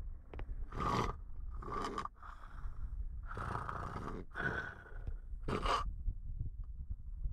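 Snoring: about six noisy, breathy snores in quick succession, some longer and some short, over a steady low rumble.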